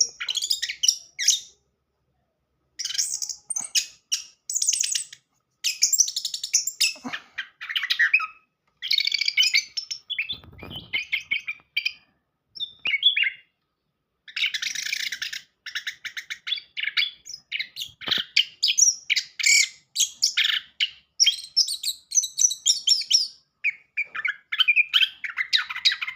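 Orange-headed thrush singing in bursts of rapid, varied phrases, each a second or two long with short pauses between them: the kind of song played as a lure to start a silent thrush singing. A dull low thump comes about ten seconds in.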